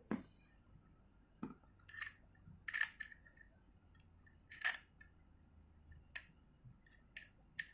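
Handle being fitted onto a Shimano Saragosa SW14000XG spinning reel: a handful of small, irregular clicks and scrapes of metal parts being handled.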